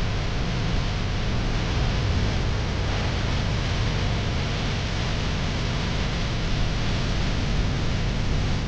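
Steady wind rush on the microphone with low rumble from a moving motorcycle.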